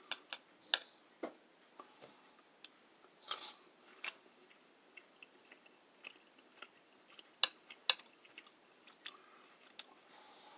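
A person chewing and eating cooked shaved chicken breast: faint, irregular mouth clicks and smacks, with two louder clicks about seven and a half seconds in.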